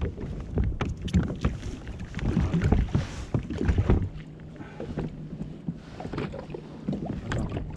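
Irregular knocks and splashing of water and gear against a kayak hull, busiest in the first half. It then settles to lapping water with a steady low hum.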